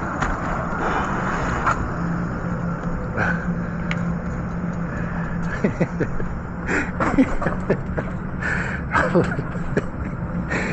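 Wind buffeting hard on the microphone of a moving fat-tyre e-bike, with road and tyre noise, a steady low hum and scattered short knocks and rattles, more of them in the second half.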